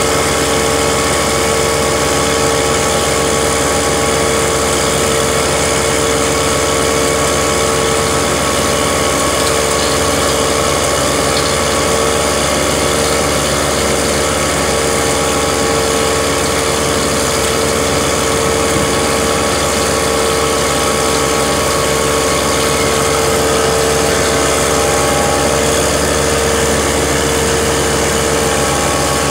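Tractor-driven maize grinding and big-bag filling machine running at a steady pace, milling wet maize grain (CCM) and pressing it into big bags, with the tractor engine running under load. A steady hum carries a constant whine.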